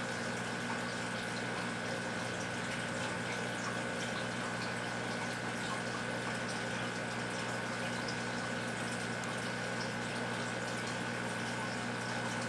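Aquarium filter running steadily: water moving and trickling over a constant hum.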